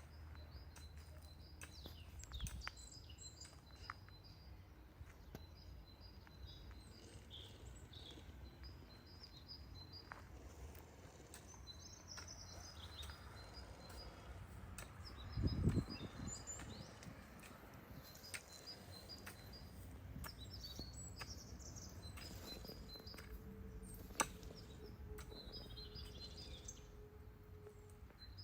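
Small birds chirping over and over in short high notes above a faint low background rumble. A dull thump about halfway through and a sharp click near the end.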